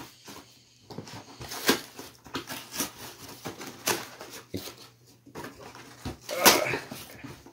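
Cardboard shipping box being cut and pulled open by hand: irregular scrapes, rustles and taps of cardboard and packing, with a louder rasping scrape near the end.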